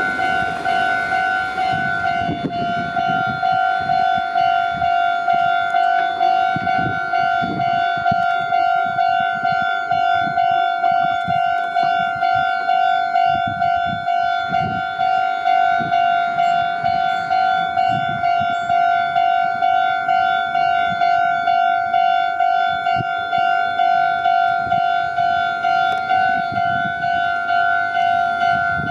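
Japanese railway level-crossing alarm bell ringing its electronic two-tone 'kan-kan' warning, pulsing evenly at about two strokes a second: the signal that a train is approaching and the crossing is closed.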